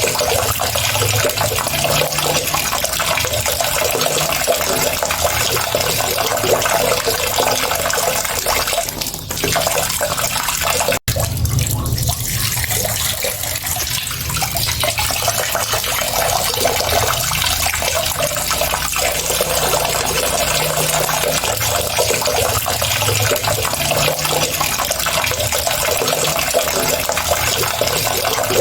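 Water running steadily, with a continuous rushing splash. The sound dips briefly and then cuts out for an instant about a third of the way through before carrying on as before.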